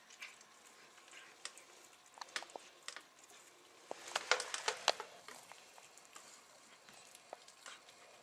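A cat eating boiled fish: faint chewing clicks, with a quicker run of louder clicks about four seconds in.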